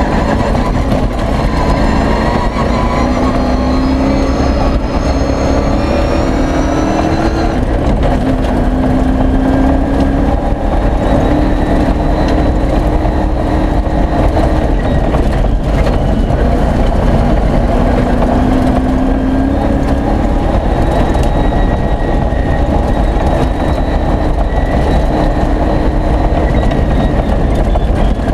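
V8 engine of a 4x4 off-road race car running hard, heard inside the cab: its note climbs as it accelerates and drops back at each gear change, over a steady rumble of tyres on the gravel track.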